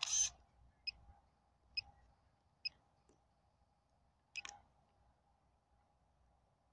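Camera shutter sound from the DJI GO app on the drone controller's tablet as the Phantom 3 Advanced takes a photo, a short sharp burst at the start. It is followed by three identical short ticks a little under a second apart and one more click about four and a half seconds in, over a faint steady hum.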